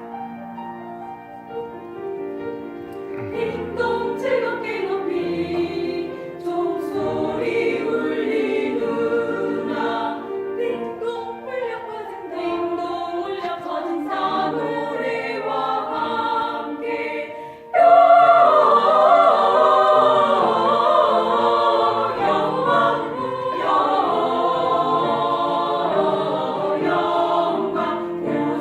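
Church vocal ensemble singing a sacred Christmas song in harmony, growing suddenly louder and fuller about eighteen seconds in.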